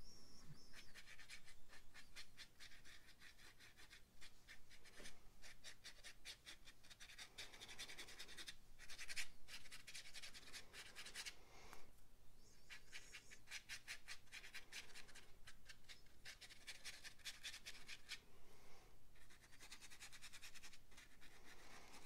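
Paintbrush scratching over watercolour paper in rapid short dry-brush strokes, a faint scratchy rasp broken by brief pauses.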